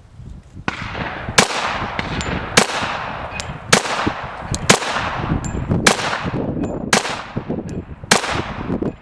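Pistol shots from a Glock 41 in .45 ACP, about eight fired at a steady pace of roughly one a second, each with a long echo dying away behind it.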